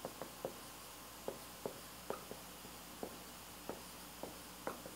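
Dry-erase marker squeaking and tapping on a whiteboard as letters are written: faint, short, irregular strokes, about two a second.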